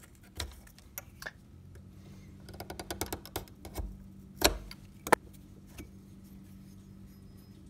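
Utility knife cutting the dried washers and plastic spacers off a hatchet's steel tang: scattered sharp clicks and snaps, a quick run of small ticks a little past halfway, and two loud snaps around the middle as pieces come off onto the wooden bench.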